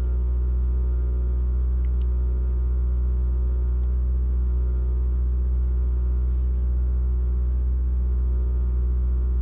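Suzuki Swift's 1.5-litre M15A four-cylinder engine running steadily at raised revs for a catalytic converter efficiency test, a constant drone with no change in pitch.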